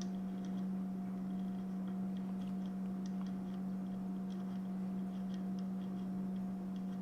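A steady low hum with faint, light ticks a few times a second over it.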